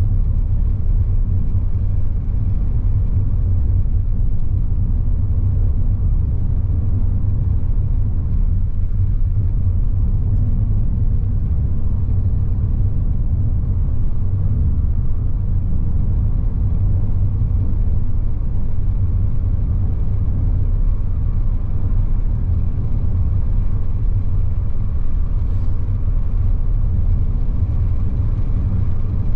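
A car driving along at a steady speed: a constant low rumble of road and engine noise that does not change.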